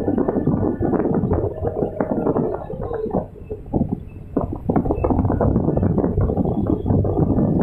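Hydraulic excavator running, heard from inside the operator's cab: a steady low engine rumble with many knocks and rattles. It eases off for about a second around the middle, then picks up again.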